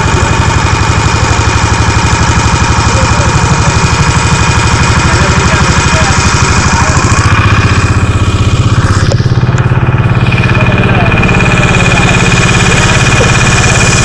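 Small outboard motor on a wooden passenger boat running steadily under way, with a fast, even chugging beat.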